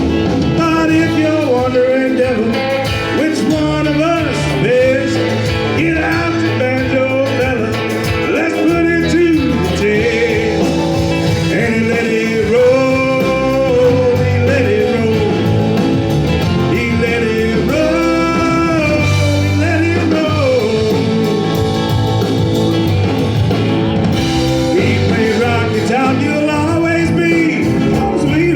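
A live country-rock band playing, with a singer over guitar, bass and drums.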